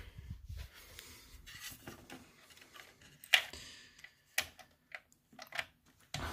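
Scattered plastic and metal clicks and taps from a graphics card being handled and pressed down into a motherboard's expansion slot, with one louder click a little past halfway and a few smaller ones after it.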